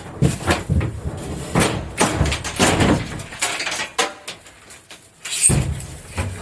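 Irregular knocks, scrapes and clatters of boat panels and foam being pulled loose and handled, with a brief squeak near the middle.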